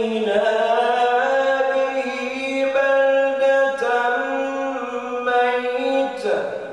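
A man's solo voice chanting Quran recitation in the melodic tajwid style, holding long notes that glide and step between pitches. The phrase ends near the end.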